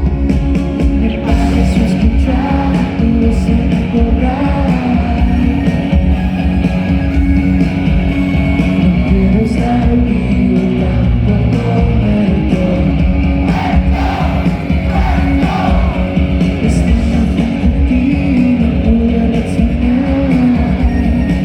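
Rock band playing live, loud and steady, a full mix of instruments with a melodic line moving above it.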